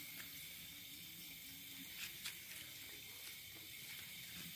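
Faint, steady high-pitched hiss of night-time outdoor ambience, with a few soft clicks about two seconds in.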